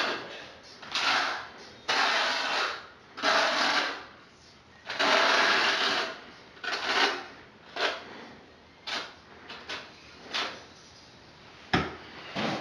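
Trowel scraping thinset mortar: a run of scraping strokes, each about half a second to a second long, the longest in the middle, then shorter, fainter strokes and a sharp knock near the end.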